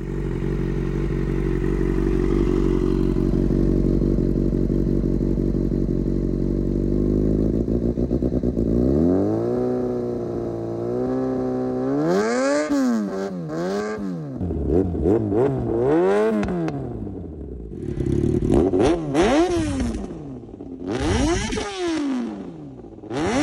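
Yamaha FZ6's inline-four engine idling steadily through twin GPR aftermarket silencers, then revved: the pitch climbs about nine seconds in, followed by a string of quick throttle blips that rise and fall.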